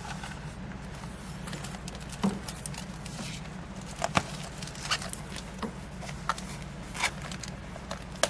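Scattered light clicks, taps and rustles of a clear plastic document pouch holding the owner's manuals being handled, over a steady low hum.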